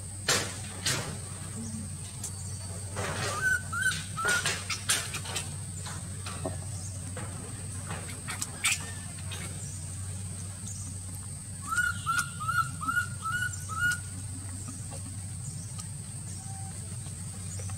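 Short high chirps from a small animal: three about three and a half seconds in, then a quick run of six around twelve seconds in. Under them runs a steady low hum and a thin, steady high whine, with a few sharp clicks scattered between.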